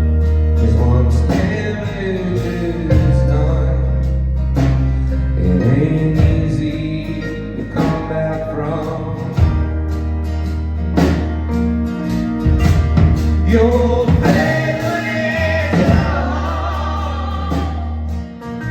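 Live band music: a singer over guitar, bass and drums.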